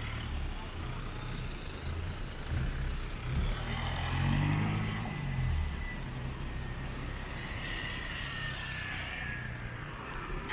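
A motor vehicle's engine running, with its pitch rising briefly about four seconds in, and a thin steady high whine that sets in around the same time.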